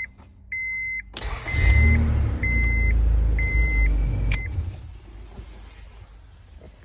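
1996 Honda Accord V6 being cranked through a separate starter switch wired straight to its new starter, a workaround for an intermittent fault in the ignition switch circuit: the starter and engine come in suddenly about a second in and run loud for about three seconds, ending with a click, after which it goes much quieter. The dashboard warning chime beeps about once a second with the key on.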